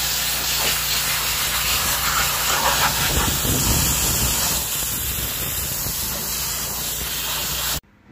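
Pressure washer spray hissing steadily as it blasts water against a tractor's sheet-metal grille panel, washing off paint and rust loosened by electrolysis, with a steady low hum underneath. It cuts off suddenly near the end.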